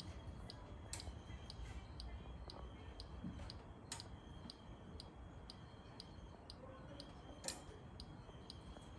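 Balmuda The Toaster's mechanical timer dial ticking steadily while it toasts, about two ticks a second, with a few sharper clicks among them.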